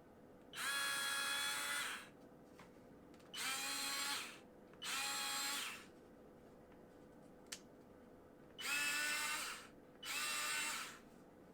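Parkside PASS 4 A1 4-volt cordless electric screwdriver switched on and off five times, its small motor whining steadily for about a second each run.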